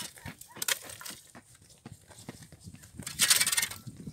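Metal ice scoop clearing broken ice and slush from a hole in lake ice: small clinks and knocks of ice pieces, then a louder crunching scrape about three seconds in.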